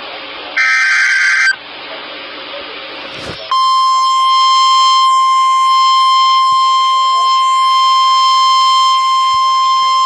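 NOAA Weather Radio Emergency Alert System signal. About a second in, a SAME header data burst plays as a harsh, warbling digital screech lasting about a second, between stretches of radio static. From about three and a half seconds in, the steady 1050 Hz warning alarm tone sounds, marking the start of a severe weather warning.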